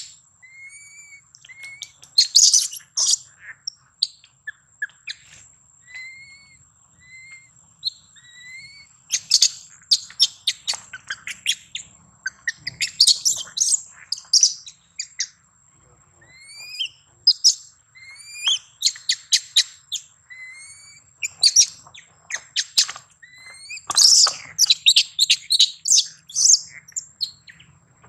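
Infant long-tailed macaque crying: short, high-pitched rising whimpers, broken by bursts of rapid squealing cries a few times.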